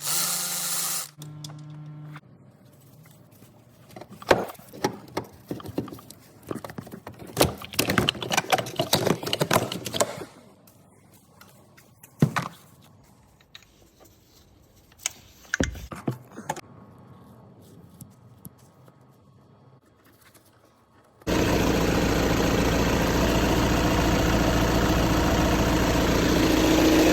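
Scattered clanks and knocks of tools being handled, then near the end a car engine starts suddenly and runs at a steady idle.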